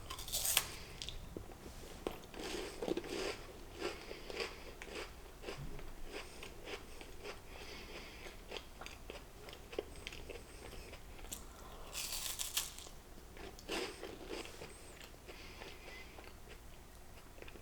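Close-miked eating: bites and chewing of a crunchy snack cake, with many short crisp crunches and a louder crackling burst about twelve seconds in.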